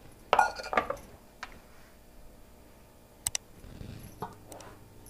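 Kitchen vessels being handled: a short clatter about half a second in, then a few separate clicks and knocks, the sharpest and most ringing a little after three seconds.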